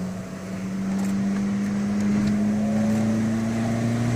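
Abarth 595 Pista's turbocharged 1.4-litre four-cylinder on its stock exhaust, pulling under acceleration, its note rising steadily in pitch and getting louder about a second in.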